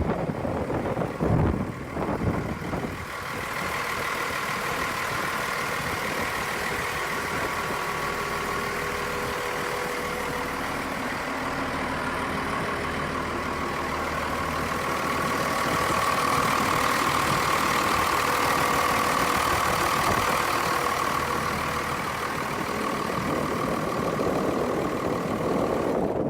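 Engine of a 1996 Badger 1085C CruzAir wheeled excavator running steadily, getting somewhat louder a little past the middle and holding there. A few low thumps in the first two seconds.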